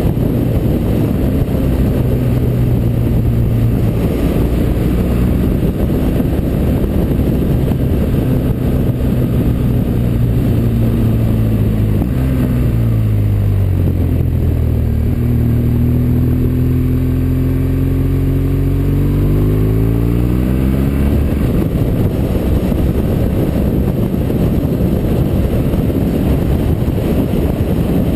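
Motorcycle engine running under heavy wind rush on the helmet microphone; about twelve seconds in the engine note drops as the bike slows for a hairpin, then rises steadily for several seconds as it accelerates out, before fading back under the wind noise.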